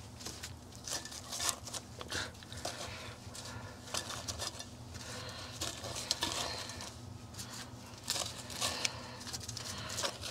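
Smoked beef cheeks being picked off a smoker's metal grate by a gloved hand and dropped into an enameled pan: soft, irregular clicks, taps and wet handling noises, over a faint steady low hum.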